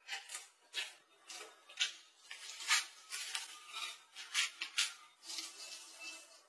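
A silicone spatula scraping and stirring soft starch dough against a glass bowl, then hands kneading and squishing the dough: a run of short, irregular sticky scraping and squishing strokes.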